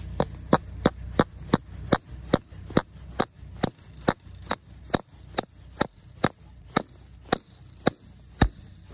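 Steady hammer blows driving a barbed steel fencing staple over barbed wire into a wooden fence post, a little over two strikes a second, the last strike the loudest.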